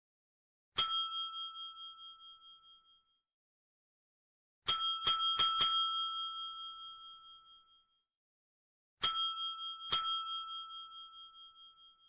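Desk bell (service counter bell) struck seven times: a single ding, then four quick dings a few seconds later, then two more near the end. Each ding rings out with a high, clear tone that fades over two to three seconds.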